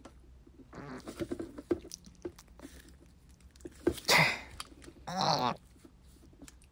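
Macerator pump parts being worked together by hand, with scattered small clicks and scrapes, then a sharp breathy huff about four seconds in and a short strained grunt a second later from the effort of forcing them together.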